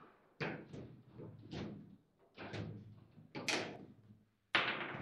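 Sharp knocks from play on a foosball table as the ball and rods strike: about six hits, each with a short ring, the loudest near the end.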